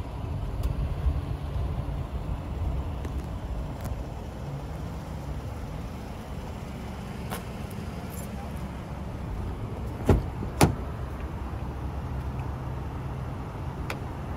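Steady low vehicle rumble with wind on the microphone. About ten seconds in, two sharp clicks a little over half a second apart, the 2014 Lincoln MKX's driver door being unlatched and swung open.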